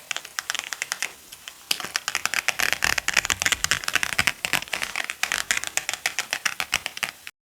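Rain-and-sand ASMR sounds: a dense, irregular stream of rapid sharp clicks that grows busier about two seconds in and cuts off suddenly near the end.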